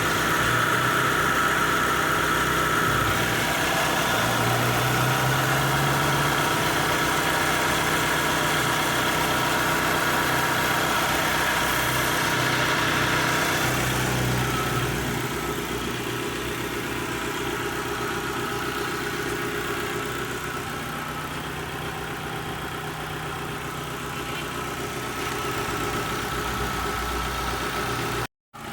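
2011 Kia Sorento engine idling steadily, with a newly replaced accessory-belt tensioner. The belt runs without the earlier squeal or flapping, showing the belt tension is restored. The sound gets somewhat quieter about halfway through.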